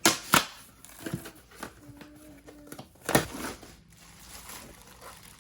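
Crinkling and rustling of packaging being handled, with three louder crackling bursts, near the start and about three seconds in.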